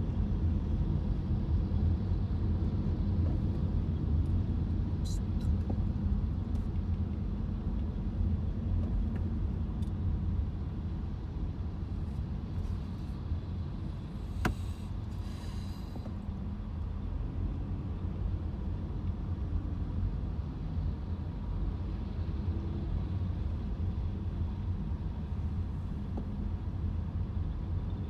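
Steady low road rumble inside a car's cabin, its tyres running on wet freeway pavement in slow traffic, with one sharp click about halfway through.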